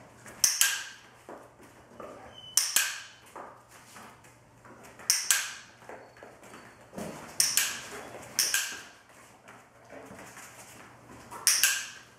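Hand-held dog-training clicker clicked six times, a couple of seconds apart, each a sharp double click of press and release, marking treats while the clicker is loaded (the click paired with food). Between the clicks come soft taps of the dog's paws on rubber floor mats.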